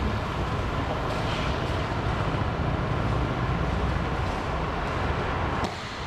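Steady road and engine noise inside a moving car: a low rumble with hiss. The noise dips briefly just before the end.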